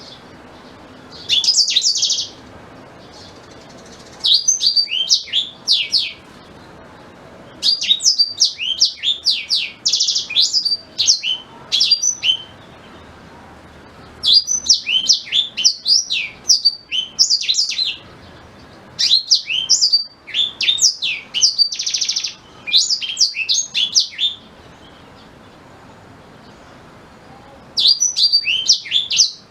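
Blackthroat (black-throated canary) singing: fast, high, twittering phrases of chirps mixed with short buzzy trills, each phrase lasting one to four seconds, with pauses between them.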